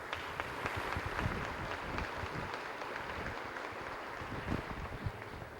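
Audience applauding steadily in a banquet room. The clapping dies away near the end.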